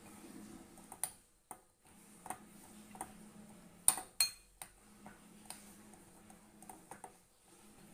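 Steel spoon stirring and scraping a thick cocoa-and-ghee paste in a glass bowl, with scattered sharp clinks of spoon on glass, the loudest two close together about four seconds in.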